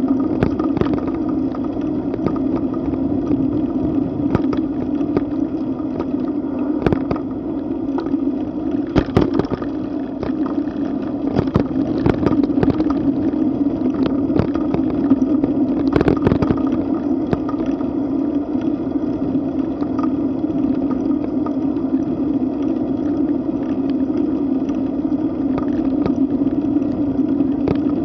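Wind rushing over the microphone of a bicycle-mounted camera while riding at about 12 to 17 mph. Through it runs a steady low rumble with frequent knocks and rattles from bumps in the road, most of them in the first half.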